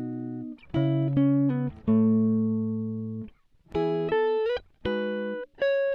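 Background instrumental music: a slow run of plucked chords, each ringing out and fading before the next, about one a second.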